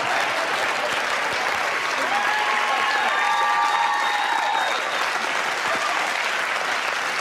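Studio audience applauding steadily and at length.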